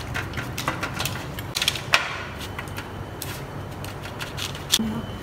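Spatula scooping raw granola from a glass bowl and tapping and scraping it out over a parchment-lined metal baking tray: a string of light clicks and taps, busiest about two seconds in, with a louder knock near the end.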